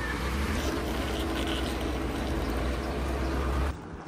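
A vehicle engine running steadily with a low rumble, cutting off abruptly near the end.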